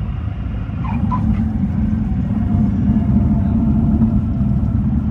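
Light aircraft's engine and propeller droning steadily, heard inside the cabin. It grows somewhat louder about a second in as the plane rolls along the pavement.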